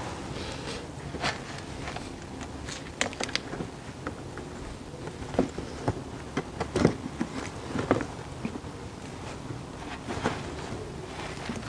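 Scattered light clicks and knocks of hand work on a Nissan Murano's external CVT oil filter and its hose clamps, irregular, with a few louder knocks in the middle and again near the end, over a faint steady background noise.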